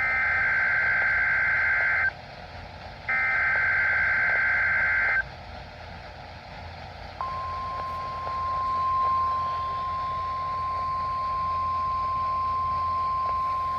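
NOAA Weather Radio weekly test signal: two roughly two-second bursts of screeching SAME digital header data with a short gap between them, then, about seven seconds in, the steady 1050 Hz warning alarm tone begins and holds. A faint radio hiss runs underneath.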